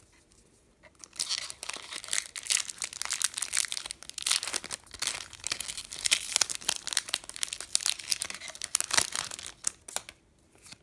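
Foil wrapper of a Yu-Gi-Oh! booster pack crinkling and tearing as it is opened by hand. A dense run of crackles starts about a second in and stops just before the end.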